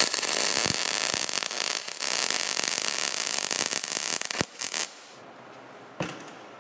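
MIG welder arc crackling steadily as a bolt is welded onto steel, with a brief break about two seconds in and two short final bursts before it stops; a single knock near the end.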